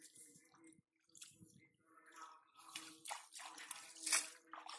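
Hands splashing and squelching through shallow muddy water and weeds, groping for fish, in irregular bursts; the loudest splash comes about four seconds in.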